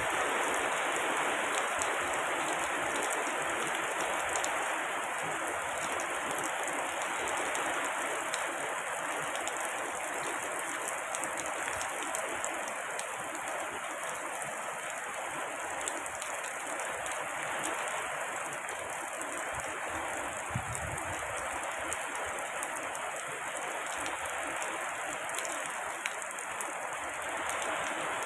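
Steady rain falling: a continuous even hiss with fine scattered drop ticks, a little heavier in the first few seconds.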